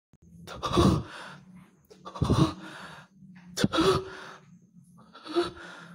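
A person's loud, sharp breaths, four of them about a second and a half apart, each forced out hard with a softer trailing breath after it.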